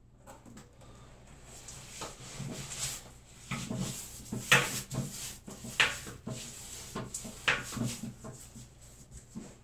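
Irregular knocks and clacks over a rubbing, rustling noise. The sharpest knocks come through the middle, one to two seconds apart, with the loudest about four and a half seconds in.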